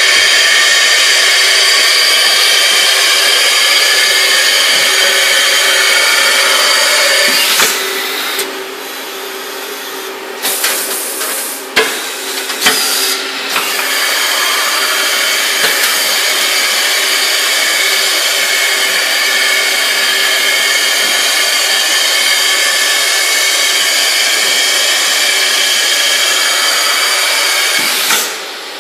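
Mazak VTC-41L CNC vertical machining center running, a steady loud mechanical whine with several held tones. About eight seconds in it drops for several seconds with scattered clicks and clunks, then picks up again and runs steadily until it cuts off at the very end.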